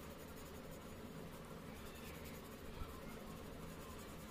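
Faint scratching of a colour pencil shading back and forth on paper, with one soft low thump near the three-second mark.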